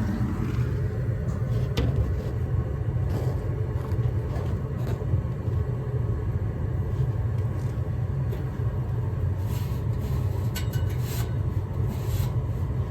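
Gas furnace running with its burners lit: a steady low rumble of the burner flames and draft inducer motor, with the circulating blower not running. A few light knocks and taps come through it.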